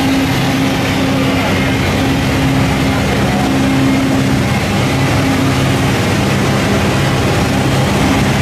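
Steady drone of running machinery, a low hum over a broad rushing noise, with no clear starts or stops.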